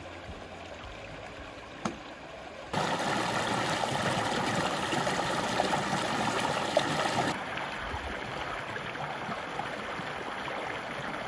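Creek water flowing over rocks: a soft flow at first, then a much louder rush of water pouring over a boulder for about four seconds, then a steadier, quieter flow.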